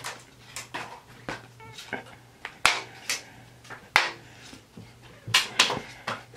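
Playing cards being flicked and thrown: a string of sharp, short snaps and slaps at uneven intervals, the loudest a little before and right at the middle.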